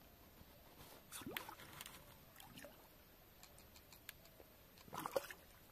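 Faint, scattered rustling and clicking of footsteps and handling in dry twigs and brush at a riverbank, with a few louder clicks about a second in and again near the end.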